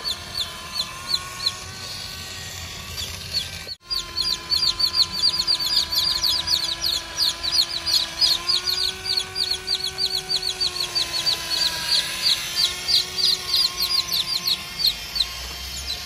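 Steady whine of a small electric motor, its pitch drifting a little, under a rapid train of short high chirps. The sound cuts out briefly about four seconds in, then the chirps come faster.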